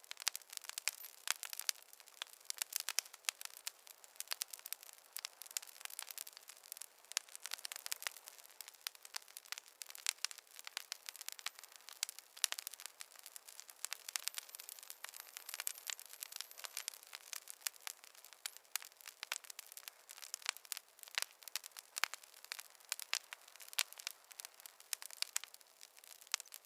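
Wood fire crackling, a constant run of small irregular pops and snaps with no low rumble of flame beneath them.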